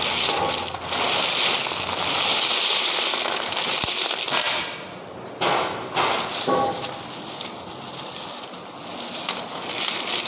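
Metal formwork tie-rod nuts clinking and rattling together in a jangle, with a few sharper knocks.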